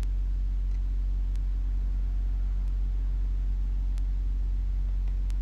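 A steady low hum with a faint buzz above it, unchanging throughout, and a few faint light clicks.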